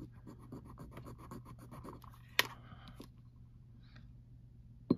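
A piece of metal jewelry rubbed quickly back and forth across a testing stone, faint and rapid, to leave a streak for an acid test of its metal. A single sharp click a little over two seconds in, then a fainter one.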